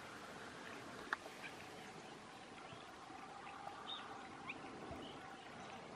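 Faint outdoor background with a few short, high chirps scattered through it and one sharp click about a second in.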